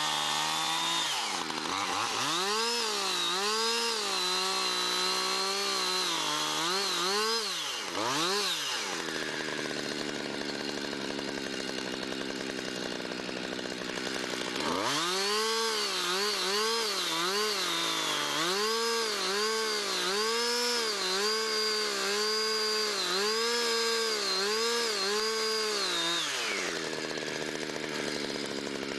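Chainsaw cutting into a pine stump in two spells, its engine pitch dipping and recovering again and again as the chain bites. In between, about a third of the way in and again near the end, it runs at a steadier pitch.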